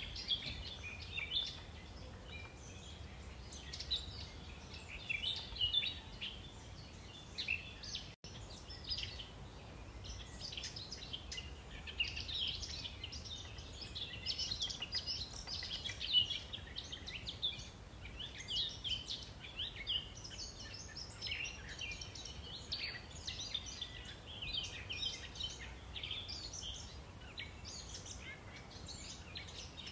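Many small birds chirping and twittering without pause, a dense chorus of short high calls over a low steady rumble. The sound cuts out for an instant about eight seconds in.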